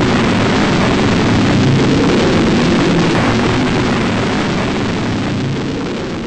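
A large fire burning: a loud, steady rushing noise that eases off slightly near the end.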